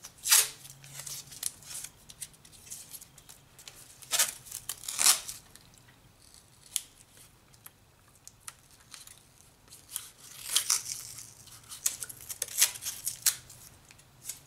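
Masking tape being pulled off the roll in several short rasping rips, bunched about four seconds in and again after ten seconds, with crinkling as the strips are pressed into place.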